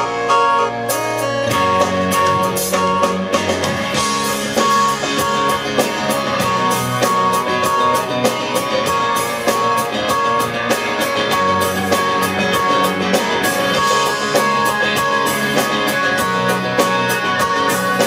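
Live pop-rock band playing: strummed acoustic guitar, electric guitar, keyboards and a drum kit keeping a steady beat.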